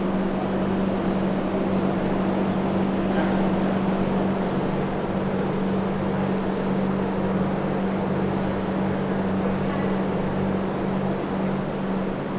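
Steady machinery drone with a low, even hum that holds one pitch throughout.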